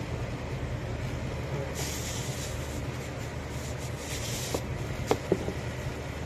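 Rustling and a few sharp clicks from a replacement HEPA filter being handled and pulled by its tab in an air purifier's filter compartment, over a steady low hum. Two brief rustles come early and midway, and three clicks near the end.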